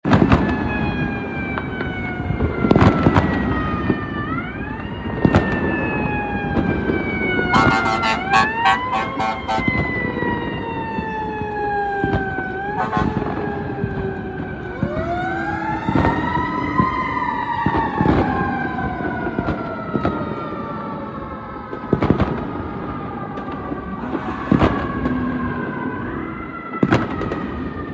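Emergency vehicle siren wailing, its pitch rising quickly and then falling slowly over several seconds, with a fast warbling yelp about eight seconds in. Sharp knocks are heard every few seconds.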